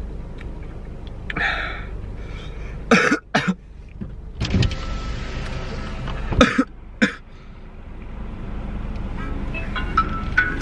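Car engine idling, heard from inside the cabin as a steady low hum, with a few short, sharp sounds over it: a pair about three seconds in and another pair about six to seven seconds in.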